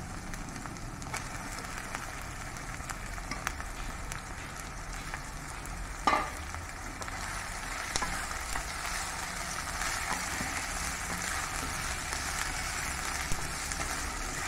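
Prawns sizzling as they fry in oil with onions in a nonstick kadai, stirred with a spatula. The sizzle gets a little stronger about halfway through, and there is one sharp knock about six seconds in.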